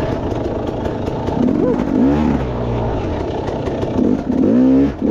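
2014 KTM 300 XC-W two-stroke dirt bike engine running at low speed, blipped up in two quick revs, about two seconds in and again near the end.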